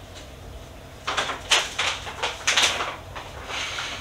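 Plastic food packets rustling and crinkling as they are handled and set on a kitchen cupboard shelf. A quick run of rustles and light knocks starts about a second in and lasts about two seconds, followed by a softer rustle.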